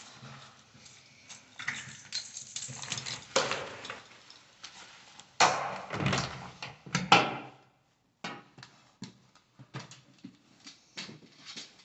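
A door being opened as a dog goes through it: rustling and handling at first, loud knocks and scrapes about halfway through, then a run of light ticks of the dog's claws on a hard floor.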